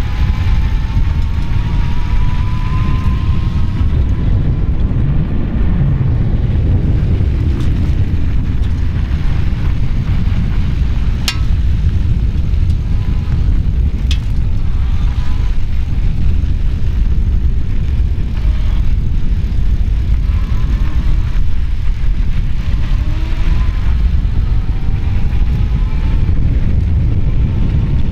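Wind buffeting a bike-mounted microphone while riding an ENGWE M20 electric bike, a loud steady low rumble. The faint whine of the bike's 750 W brushless motor rises in pitch over the first few seconds. Two sharp clicks come about three seconds apart near the middle.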